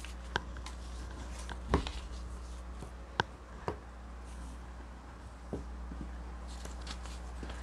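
A handful of short, light knocks and taps as a whiteboard eraser and paper cards are handled and set down on a tabletop, over a steady low electrical hum.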